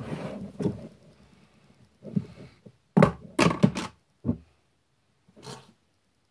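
A series of soft thuds and knocks, about seven short ones at uneven intervals, with a quick cluster of three about three seconds in.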